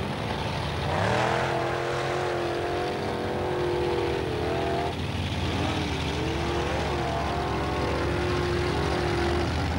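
Formula offroad buggy's engine revving hard on a steep dirt climb. Its pitch climbs about a second in and is held at high revs, dropping briefly twice midway.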